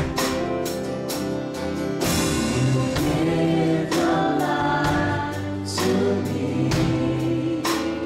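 Live worship band playing a gospel song, with several voices singing together over guitars, keyboard and a drum kit keeping a steady beat of about two hits a second.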